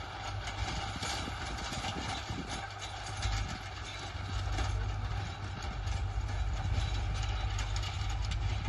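Tractor engine running steadily under load as it works a dry field, with a low rumble underneath.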